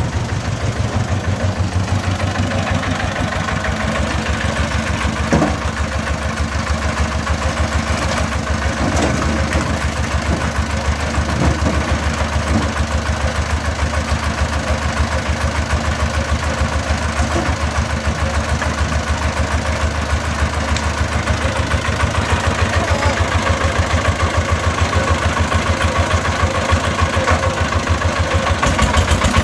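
The single-cylinder diesel engine of a công nông three-wheeled farm truck idling steadily with a rapid, even chugging. A few sharp clacks of bricks being pulled off the tipped bed come in the first half.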